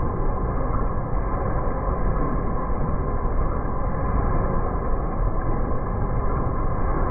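Muller Martini Tempo saddle stitcher running at production speed: a steady, dense mechanical din from its gathering chain and feeders as the printed sheets are carried along.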